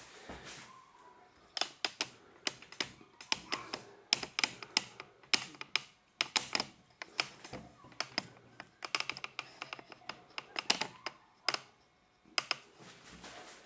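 A quick, irregular run of sharp clicks and taps, several a second, with short pauses, starting about a second and a half in and stopping shortly before the end.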